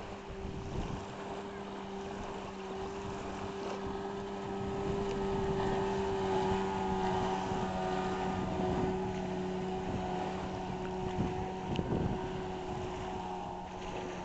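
The outboard motor of a 10 ft mini power boat runs at a steady high speed as the boat passes, louder in the middle as it goes by and fading near the end. Wind rumbles on the microphone.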